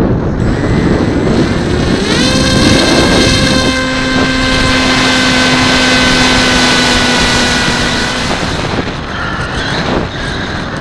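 Radio-controlled model airplane's motor spooling up with a quick rising whine about two seconds in, then running at a steady high pitch at full throttle for takeoff, fading near the end. Wind buffets the microphone throughout.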